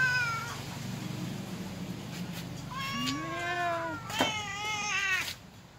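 Hungry domestic cats meowing: one call trails off at the start, then about three seconds in come long, drawn-out meows, two of them overlapping near the end, with a short click in between.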